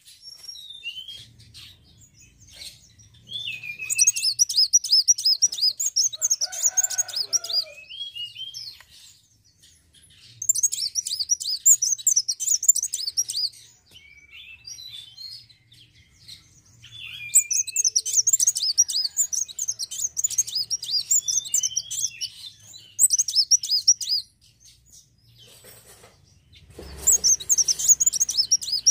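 A sunbird, the kolibri wulung (kowul) of Indonesian bird-keepers, singing in bursts of fast, high-pitched twittering chirps, each a few seconds long, with single short call notes between the bursts.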